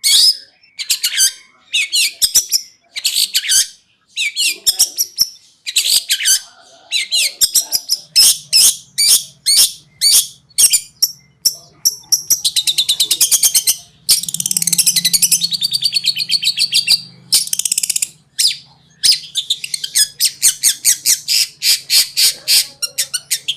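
Long-tailed shrike (cendet) singing a fast, varied song: sharp high chirps and whistled phrases, long harsh rattling trills about halfway through, then a quick run of repeated chips.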